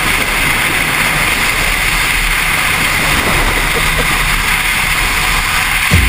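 Steady wind rush and road noise from a motorcycle at highway speed, picked up by a camera microphone mounted on the bike, with a brief low thump near the end.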